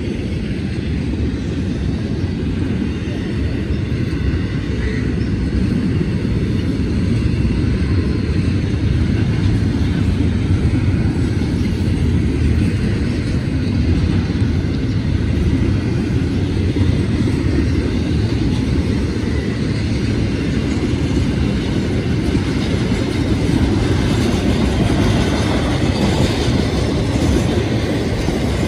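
Freight train passing at speed: a steady rumble of wheels on rail, swelling slightly after the first several seconds.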